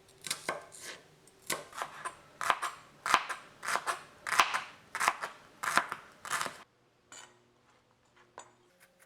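Kitchen knife dicing a shallot on a cutting board: a string of chopping strokes, roughly two a second, that stops about two-thirds of the way through.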